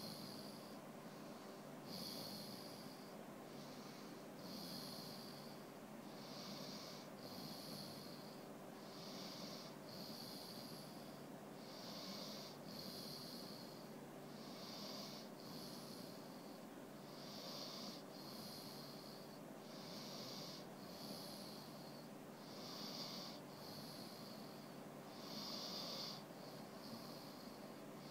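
Dog snoring in a steady rhythm, about one snoring breath every two and a half to three seconds, each breath in two rasping parts.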